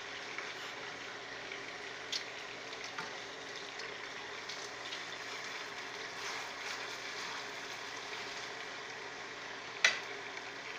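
Pots cooking on a gas stove, sizzling and bubbling steadily, as fried red snapper pieces are moved with a metal utensil from a frying pan into a stew pot. The utensil clinks against the pan a few times, with one sharp clink near the end.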